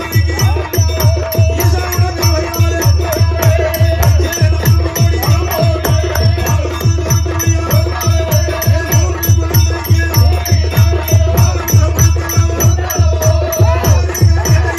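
Loud, rhythmic festival music: a fast, steady drumbeat, about five strokes a second, under a wavering melody line.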